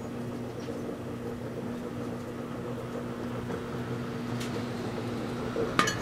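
Microwave oven running with a steady hum while a digital wristwatch burns and sparks inside. A faint crack about four and a half seconds in and a louder, sharper crackle near the end as the watch flares up.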